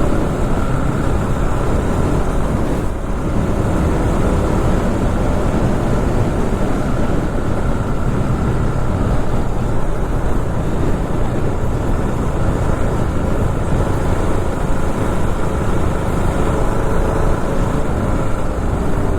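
KTM RC390's single-cylinder engine running steadily under way, with wind rushing over the microphone.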